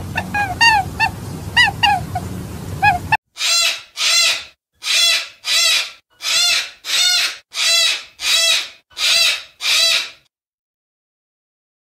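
Short chirps over a low hum, then a sulphur-crested cockatoo screeching: about ten harsh calls in a steady rhythm, roughly three every two seconds.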